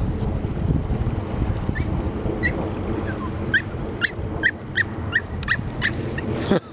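Crickets chirping in a fast, even rhythm, about three chirps a second. Through the middle comes a run of sharper, lower chirps from another animal, over a low rumble of wind on the microphone.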